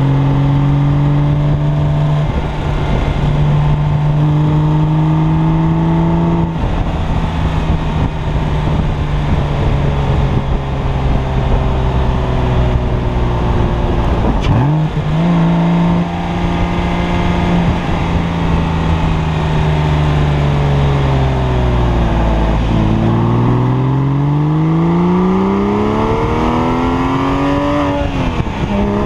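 2003 Porsche 911 Carrera (996) flat-six exhaust through 'Gundo-hack' modified mufflers, on the move: a steady cruising drone, a short break about halfway, then the note falls as the car slows. It climbs steadily under acceleration and drops sharply at a gear change near the end.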